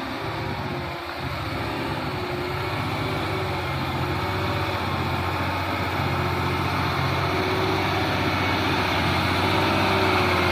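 Heavy diesel truck engine running steadily, getting gradually louder as the truck draws nearer.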